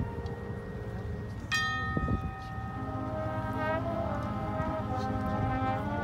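Marching band music in a slow, sustained passage: held chords, with a bell-like note struck about a second and a half in that rings on over them.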